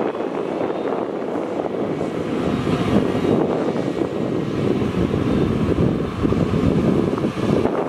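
Heavy diesel engines of excavators and dump trucks running at a worksite, with frequent small knocks and rattles. A heavier low rumble comes in a little over two seconds in, and it gets somewhat louder.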